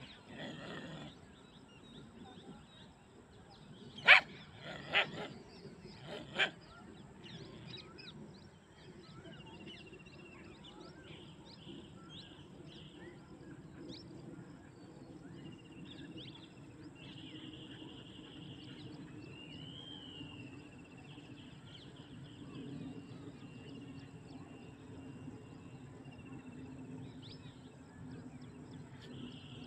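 A dog barking three sharp times, about four to six and a half seconds in. After that come faint high chirps and trills over a low steady background.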